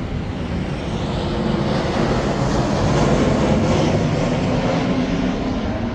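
Airplane passing low overhead: a loud engine and rushing noise that builds to a peak about halfway through and then starts to fade.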